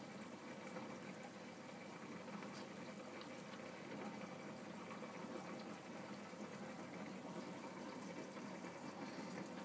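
Faint, steady rush of water circulating through a marine aquarium, its filtration and plumbing running.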